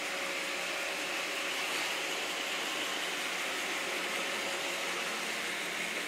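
iRobot Roomba 650 robot vacuum running: a steady whir from its vacuum motor and brushes, with a faint steady hum underneath.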